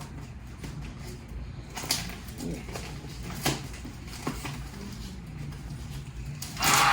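A few sharp, separate crunches and clicks from Goldfish crackers and their packet being handled and bitten, over a low steady hum. A loud, even hissing sound sets in just before the end.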